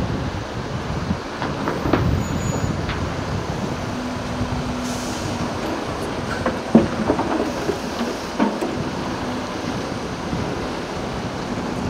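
Heavy vehicle noise: a steady rumble with scattered metallic clanks and knocks, the sharpest about seven seconds in, and a steady low tone that comes and goes.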